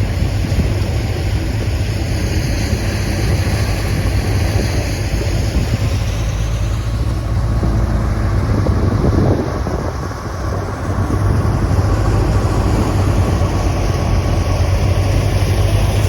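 Tractor-driven wheat thresher running: a loud, steady machine drone, with a brief dip in level about ten seconds in.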